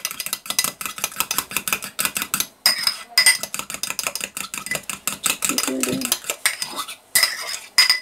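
A fork stirring an egg, butter and almond-flour batter in a ceramic ramekin, clicking quickly and steadily against the sides and bottom, with a few short pauses.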